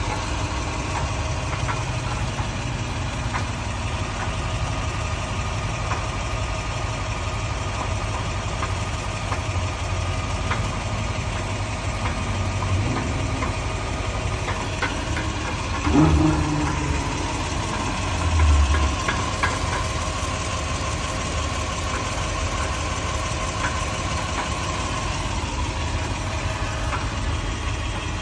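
2001 Toyota Sequoia's 2UZ-FE V8 idling steadily with an odd clunking, which the owner suspects comes from the transfer case or is noise carrying down the driveshaft. Two louder low thumps stand out a little past halfway.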